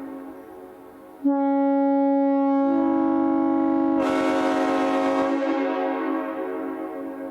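A 1950s Nathan Airchime M5 five-chime train horn (scallop base, bronze nozzles) blown on compressed air: the last of a previous blast dies away, then a sudden loud blast about a second in, its chord filling out as more bells come in, held for a few seconds and then fading away slowly.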